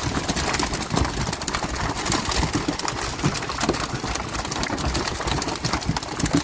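A boat's engine running, with a rapid, irregular clatter over a low rumble.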